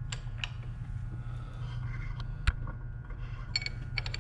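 Light metallic clicks and taps of lathe parts and tools being handled during disassembly, with one sharper knock about two and a half seconds in, over a steady low hum.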